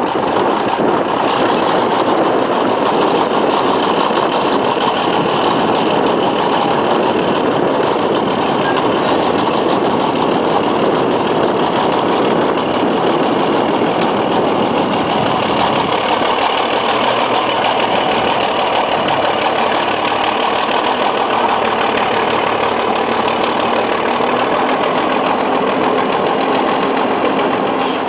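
Old Caterpillar crawler tractor's diesel engine running steadily and loudly as the machine drives under its own power.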